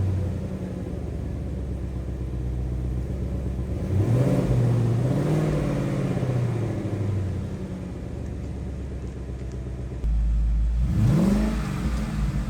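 Car engine and exhaust running, revving up about four seconds in and again sharply near the end, the pitch rising and then falling away.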